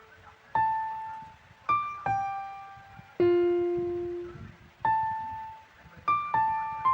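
Background music: a slow piano melody of single notes, each struck and left to ring and fade, about seven or eight notes in all.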